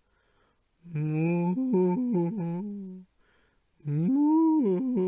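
A man's voice humming a wordless melody in two phrases of about two seconds each, with held notes that step up and down in pitch. The first phrase starts about a second in, and there is a short pause before the second.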